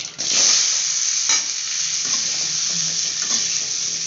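Boiled jackfruit seeds tipped into hot tempering oil in a kadai: a loud sizzle starts suddenly about a quarter second in and carries on steadily. A knock about a second later comes from stirring.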